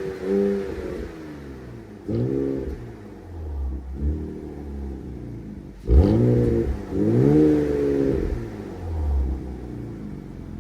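Engine revved repeatedly through a newly fitted aftermarket exhaust system during a decibel test, in about half a dozen blips that rise and fall in pitch. The hardest rev comes about six seconds in; this exhaust peaks at 116.8 decibels and sounds sportier than the stock system.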